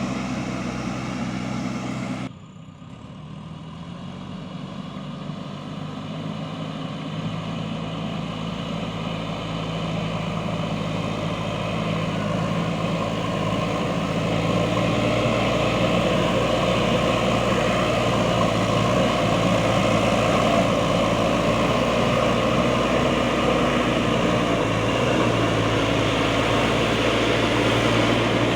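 Diesel engine of a JCB backhoe loader running steadily under work. It cuts off abruptly about two seconds in, comes back quieter, then grows gradually louder over the next dozen seconds and holds steady.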